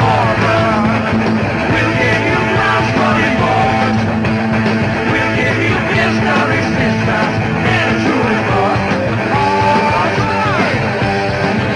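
Rock band playing loud and live: electric guitar, bass guitar and drums, with a male lead vocal.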